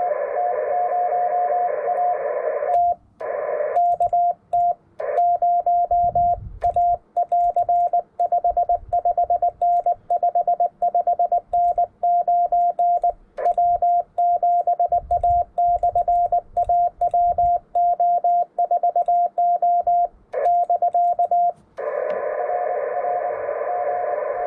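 Amateur radio transceiver in CW mode. For about the first three seconds the receiver plays band hiss with a Morse signal in it. The operator then keys a long stretch of Morse code, heard as a clean sidetone beeping on and off. Near the end the receiver hiss and incoming Morse return.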